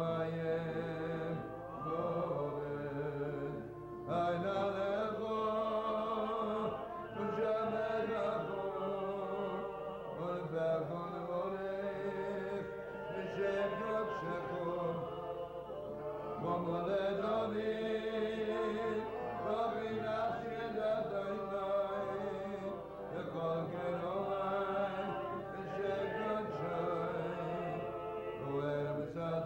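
A man singing a chant-like Jewish melody into a microphone, holding long bending notes, with acoustic guitar accompaniment.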